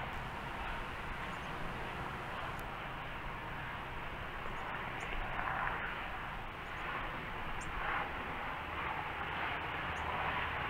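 Steady outdoor background noise, a hiss with a low rumble and slow swells, with a few faint, short high-pitched chirps.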